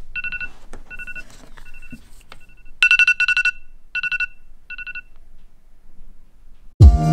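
iPhone alarm going off: quick runs of short electronic beeps on two steady pitches, repeating in groups until it is snoozed about five seconds in. Music with a beat starts near the end.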